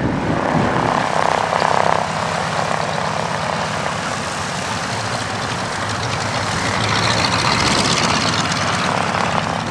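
Propeller aircraft flying past: a steady engine and propeller drone that grows brighter and sharper about seven seconds in.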